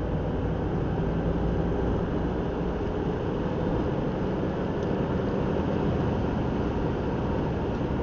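A car driving at a steady cruising speed, heard from inside the cabin: a constant low rumble of engine and tyre-on-road noise.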